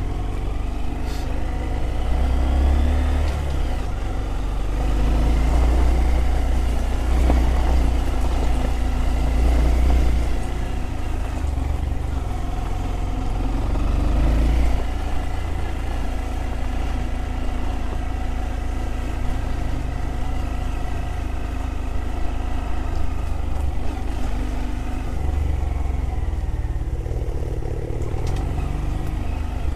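Honda motorcycle engine running while riding, its pitch and loudness rising and falling with the throttle over a heavy low rumble.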